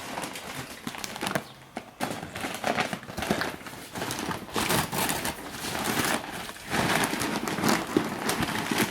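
Lump charcoal being tipped and shaken onto a charcoal grill: a dense run of irregular clatters and rustles as the pieces knock against each other and the grate.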